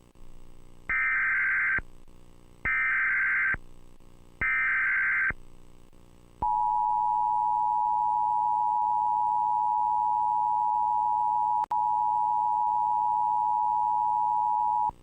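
Emergency Alert System activation: three short bursts of the buzzing SAME data header, each just under a second long, then the EAS two-tone attention signal, a steady two-note tone held for about eight seconds that drops out briefly partway through. Together they announce an incoming emergency alert.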